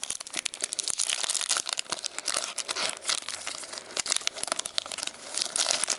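A Pokémon trading card booster pack's foil wrapper being torn open and crinkled by hand: a dense run of crackling and rustling.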